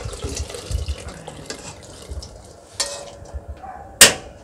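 Meatballs and curry being poured and scraped from a nonstick wok into a steel pot of coconut milk, with liquid pouring and splashing for the first couple of seconds. Scattered metal clinks follow, then a sharp clack about four seconds in, the loudest sound.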